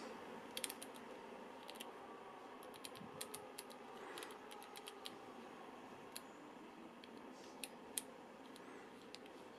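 Small, sharp clicks of a Panasonic GH5's rear control dial turning under a thumb, coming in short irregular runs, each click one step through the white balance settings.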